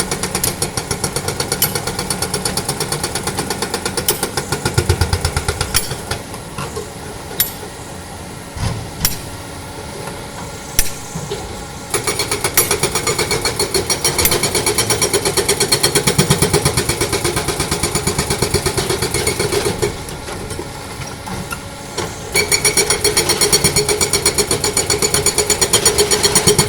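Excavator-mounted hydraulic rock breaker hammering rock in rapid, evenly spaced blows, in long bursts. It stops twice for several seconds, leaving the diesel engine running with a few single knocks of rock.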